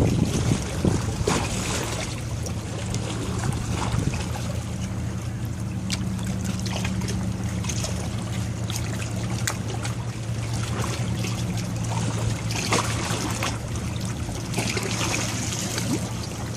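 Steady low drone of a ship, with wind buffeting the microphone and water washing in the background.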